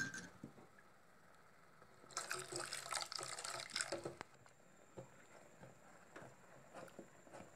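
Cornflour slurry poured from a bowl into a pot of hot milk, a splashing trickle lasting about two seconds, followed by a few faint knocks of the spatula against the enamel pot as it is stirred.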